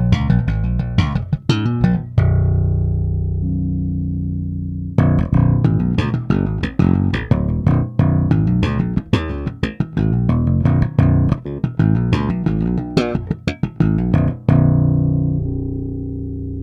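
Foals FJB6-V five-string jazz-style electric bass played solo in fast runs of plucked notes. About two seconds in, and again near the end, a held note is left to ring and fade.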